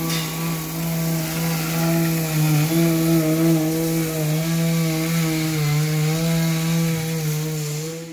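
Vacuum cleaner running, sucking up sandblasting grit, a steady motor hum with airy hiss whose pitch wavers slightly as the nozzle is worked; it cuts off abruptly near the end.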